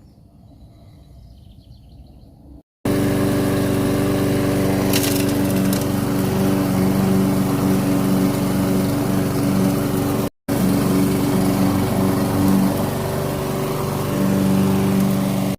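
Toro SmartStow walk-behind petrol lawn mower engine running steadily while cutting grass. It comes in suddenly about three seconds in, after a faint quiet stretch, and breaks off for a split second near the middle.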